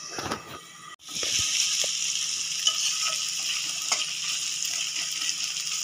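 Sliced onions sizzling steadily in hot oil in an aluminium kadai, starting about a second in, with a metal spatula stirring and clicking against the pan now and then.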